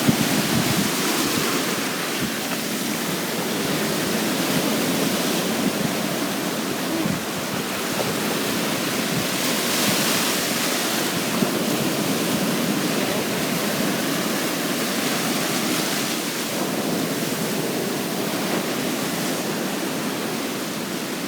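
Ocean surf washing onto the beach in a steady rush that swells gently now and then, with wind buffeting the microphone.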